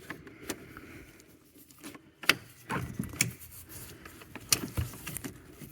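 Plastic door trim being handled and fitted: several sharp clicks and knocks at irregular intervals, the loudest a little past two seconds in and about four and a half seconds in.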